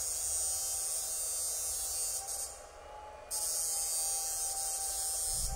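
Electric fish-shocking machine (electrofishing inverter) running under test, giving off a steady high-pitched electronic whine over a thinner middle tone and a low hum. The high whine drops out for under a second about two and a half seconds in, then comes back, while the power setting is being adjusted.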